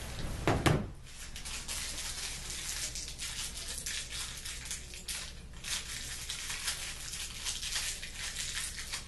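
A couple of heavy thumps on the dresser's panels about half a second in, then light rustling and scraping as hands handle small hardware and a hammer on the top.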